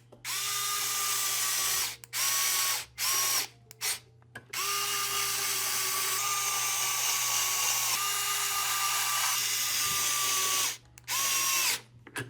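Small electric screwdriver driving the larger hex screws, a steady motor whine in separate runs: three short bursts, then one long run of about six seconds, then one more short burst near the end.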